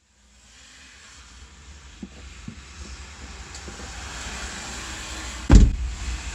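Pouring rain drumming on a car's windshield and roof, heard from inside the car, fading in and growing steadily louder. A loud thump about five and a half seconds in.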